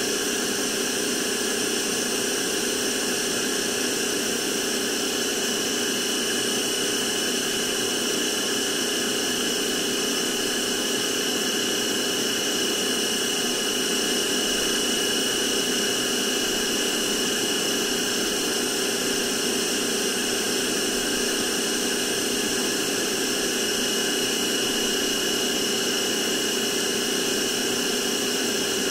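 Novete VT-DH003 cordless handheld vacuum cleaner running steadily: a constant high motor whine over a rush of air, unchanging in pitch and level.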